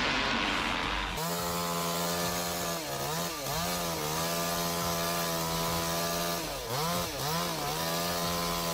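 A chainsaw running at high revs, its pitch steady but briefly dipping and recovering a few times, after about a second of hiss.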